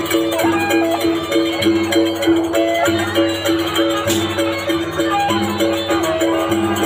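Traditional Sasak procession music played live: large slung hand drums, bright jangling cymbal strokes, and a repeating melody of short, steady pitched notes.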